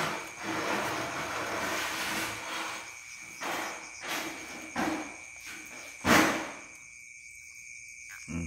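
Night insects, crickets, chirring in steady high tones, broken by several short noisy scuffs and a loud sharp knock about six seconds in.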